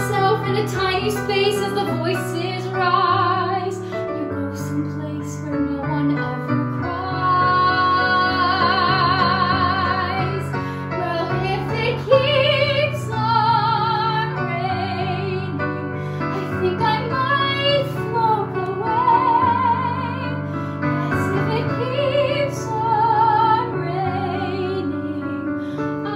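A woman singing a musical-theatre song with vibrato on her held notes, over sustained instrumental accompaniment.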